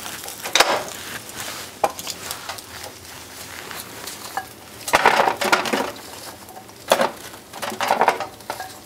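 Kitchen clatter as sliced carrots are tipped from a glass bowl and spread into a disposable aluminium foil baking pan. Scattered knocks and clinks of the bowl, spoon and pan come in short clusters, the busiest about five seconds in and again around seven and eight seconds.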